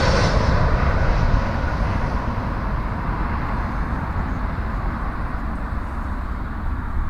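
Jet airliner's engines fading away after it passes low on final approach to land. The high whine drops off in the first couple of seconds, leaving a low rumble that slowly dies down.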